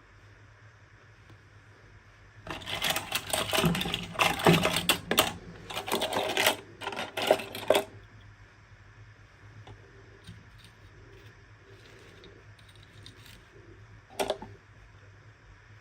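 Toy packaging being handled and opened: about five seconds of dense crinkling and clicking, then a single sharp click near the end.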